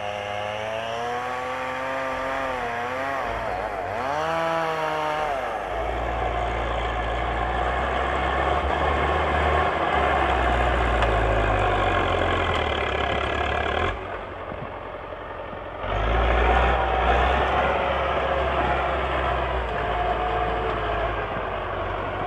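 MTZ-82 tractor's four-cylinder diesel engine working hard as the tractor pushes through a slushy swamp ford, revving up and down in the first few seconds and then running under heavy load with a deep rumble. It eases off briefly about two-thirds of the way through, then pulls hard again.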